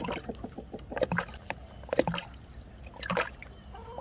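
Hens drinking from a plastic dome waterer's trough: beaks dipping and scooping in the water, giving small splashes and light taps about once a second.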